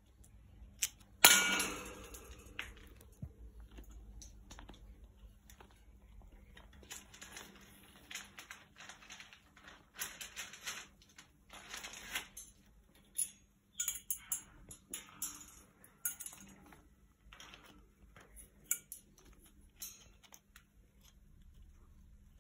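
A green-winged macaw handling a walnut on its metal cage. About a second in there is one sharp metallic clang that rings on briefly. After it come scattered clicks, taps and scrapes of beak, claws and nutshell on the metal bars.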